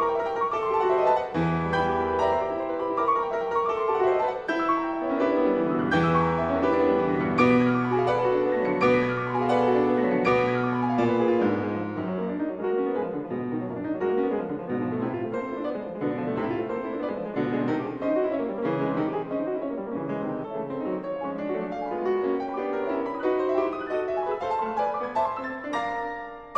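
Background piano music: a solo piano piece with many struck notes and chords ringing out, fading near the end before the next phrase begins.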